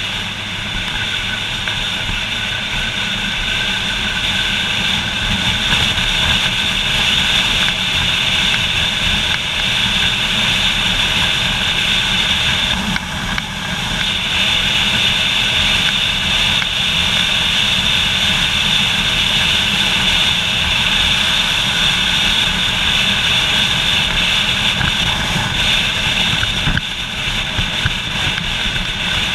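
Motorcycle riding along at speed, its engine running under a steady rush of wind over the onboard camera's microphone. The sound dips briefly a little before halfway and again near the end.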